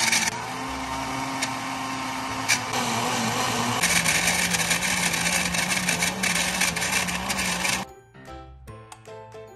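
Countertop blender running at full speed, pureeing green chillies, ginger and coriander with water into a green paste. Its motor hum drops in pitch about four seconds in, and it cuts off about eight seconds in, leaving only background music.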